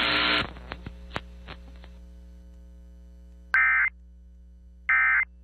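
A hiss of radio static cuts off about half a second in, leaving a few clicks and a steady mains hum. Near the end come two short, loud warbling data bursts, each about a third of a second long and spaced about a second and a third apart. These are Emergency Alert System SAME end-of-message bursts, signalling that the alert broadcast is over.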